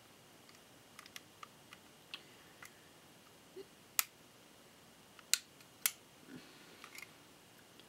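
Scattered small clicks and snaps of plastic Kre-O construction-toy pieces being handled and fitted, with three sharper snaps in the middle.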